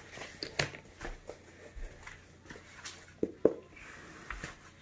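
Handling noise from a fabric-and-plastic knee guard being pulled onto a leg: light rustling and scattered soft clicks and taps, with one sharper knock about three and a half seconds in.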